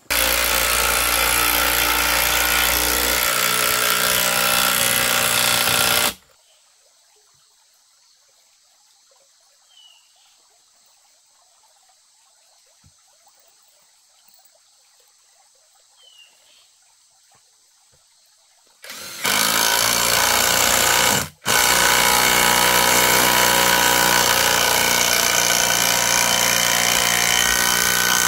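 Cordless impact driver running in long, steady bursts into the wooden frame: one run of about six seconds, then near silence for about thirteen seconds, then another long run that breaks off briefly once.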